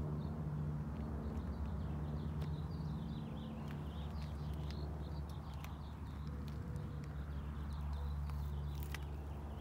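A steady low machine hum, with faint short high chirps in the first half and a few sharp clicks.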